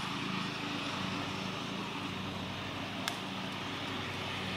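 A steady low mechanical hum under an even hiss, with one sharp click about three seconds in.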